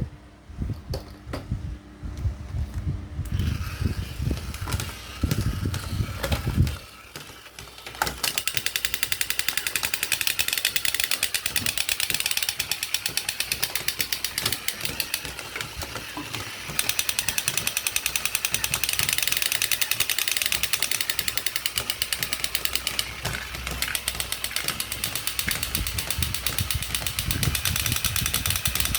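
Battery-powered toy vehicle running: a fast, even rattle of clicks that starts about eight seconds in, after some irregular knocks and bumps.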